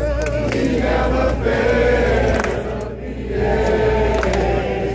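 A crowd of many voices singing a praise-and-worship hymn together, with a short dip between phrases about three seconds in.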